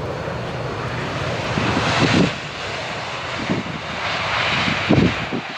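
Boeing 747-400's four jet engines at takeoff power as the jet rotates off the runway: a steady loud roar with a few low thumps.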